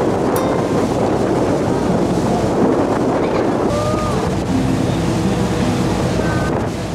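Wind buffeting the microphone on a car ferry's deck over the steady rush of churning wake water and a low engine hum. From about four seconds in, soft music with held notes comes in underneath.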